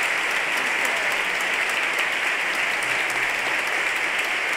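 Large audience applauding steadily, a dense continuous clapping with no let-up.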